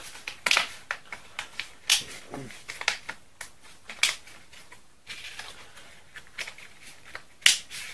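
Orange plastic terminal covers being pressed and clipped onto a row of Nissan Leaf battery modules: a string of irregular plastic clicks and snaps, the sharpest one near the end.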